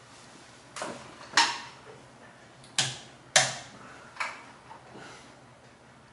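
About five sharp, irregular clicks and knocks of small metal parts being handled: an old round power plug and its cable worked by hand.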